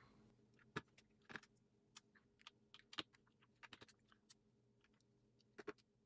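Faint, irregular small clicks and ticks of a screwdriver and tiny screws being worked at the metal bottom cover of a mini PC.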